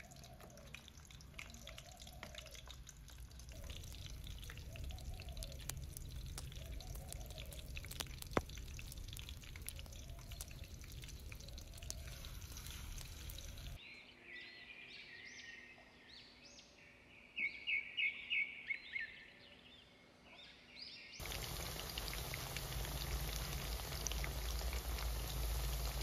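Kotlet (chicken-mince cutlet) mixture sizzling in hot oil in a pan over a crackling wood fire. Then birds singing, with a short run of loud, quick chirps midway, before a loud steady sizzle of cutlets frying in bubbling oil.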